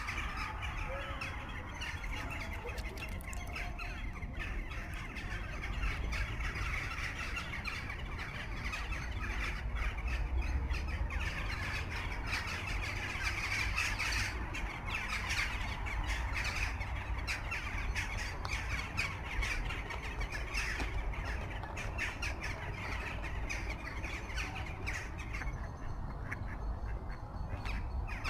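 A flock of birds calling and squawking continuously, over a steady low rumble.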